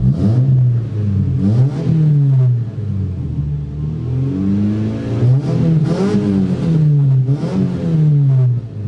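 Mitsubishi Eterna GTI's engine revved several times through a newly fitted NDK Pro Series exhaust with twin tips and a silencer. The note climbs and falls with each blip, with one longer climb in the middle, dropping back toward idle between revs.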